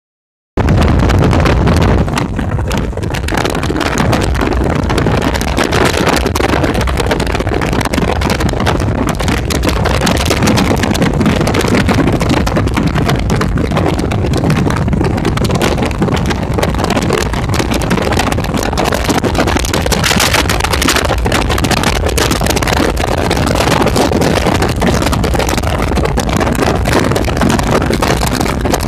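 Steady road noise and rushing wind from a car travelling at highway speed, with a heavy low rumble. It begins about half a second in.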